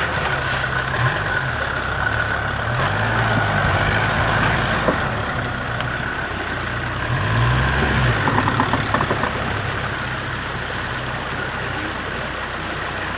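Off-road 4x4's engine revving up and dropping back in several short throttle bursts as it crawls up and over a fallen log.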